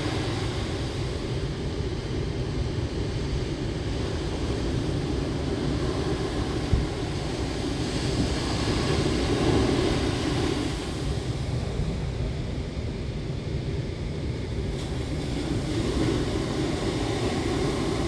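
Rough sea surf breaking and washing in, with wind rumbling on the microphone; the surf swells louder about halfway through. A single short knock sounds near the seventh second.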